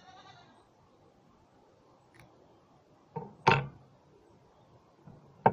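Small plastic battery and metal tweezers handled on a wooden board: a brief squeak at the start, a faint click, then two sharp knocks close together about three and a half seconds in, and another loud knock at the very end.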